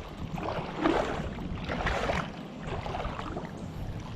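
Water sloshing and splashing close to the microphone, in irregular soft swells.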